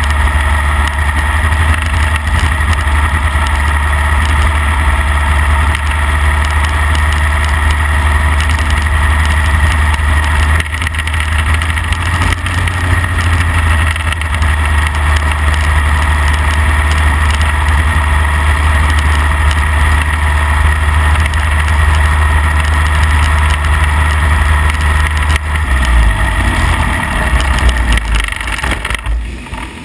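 Midget race car engine heard from an onboard mic, running loud and steady as the car laps the dirt track. About four seconds before the end the engine note changes, and near the end the sound falls away sharply as the engine backs off or cuts.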